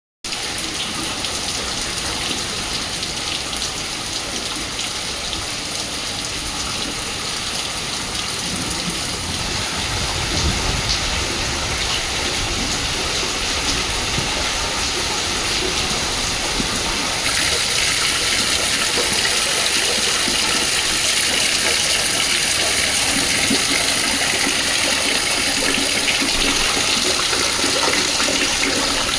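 Heavy rain mixed with hail, a dense steady clatter of hailstones and raindrops striking, growing louder and sharper a little over halfway through.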